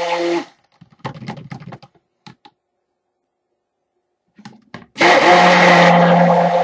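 Stick blender running steadily in cold process soap batter, stopping about half a second in. A few light knocks and clatter follow, then the blender starts again about five seconds in and runs on.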